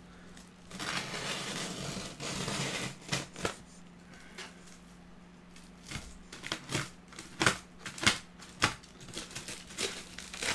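Plastic bubble wrap and corrugated cardboard rustling and crinkling as they are pulled apart by hand: a steady rustle for the first few seconds, then a run of sharp crackles in the second half.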